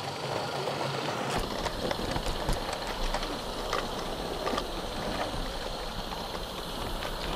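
A 16mm-scale live-steam garden railway freight train running, heard from one of its wagons: a low rumble of the wheels on the track, starting about a second in, with irregular sharp clicks and clacks.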